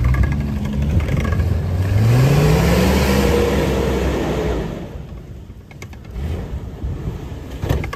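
Jeep Grand Cherokee's 4.0-litre straight-six revving hard as the vehicle drives through mud and snow. The revs climb after about a second, hold high, then drop away about halfway through.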